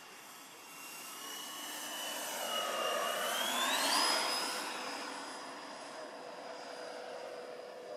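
Twin Schübeler HDS 120 mm electric ducted fans of a large scale model Airbus A350 passing low, a high whine over a rushing air noise. The whine climbs steeply in pitch about four seconds in, where the sound is loudest, then holds steady as the sound eases off.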